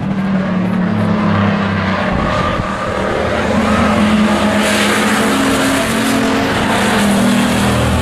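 Race pickup trucks' engines running hard at speed, several at once, their pitch rising and falling as they lap the track.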